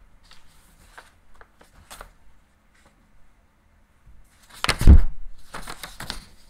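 Handling noise at a lectern: faint clicks and rustles, then a loud, deep thump nearly five seconds in, followed by more rustling.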